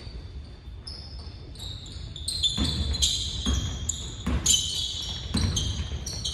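A basketball bouncing on a hardwood gym floor, a dribble thud about once a second from about halfway in, with short high squeaks of sneakers on the court.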